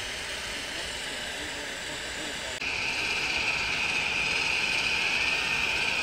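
Steam hissing steadily from a 15-inch-gauge Romney, Hythe and Dymchurch Railway steam locomotive as it vents steam. The hiss turns suddenly louder and sharper about two and a half seconds in.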